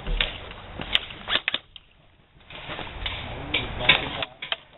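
Scattered sharp pops and clicks of airsoft gunfire, with the loudest snap a little before the end and a near-silent gap of about a second in the middle.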